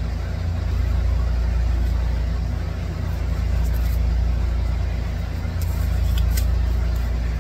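Steady low mechanical hum, like a motor running, with a few faint light clicks about halfway through and again near the end.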